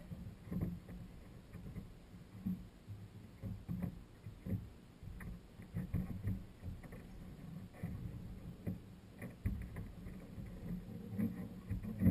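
Small waves lapping and slapping irregularly against the hull of a jet ski at rest with its engine off, with soft knocks.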